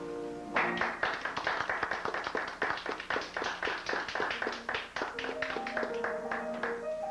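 Theatre audience applauding, the clapping starting about half a second in. From about five seconds in the applause thins out and a piano starts playing.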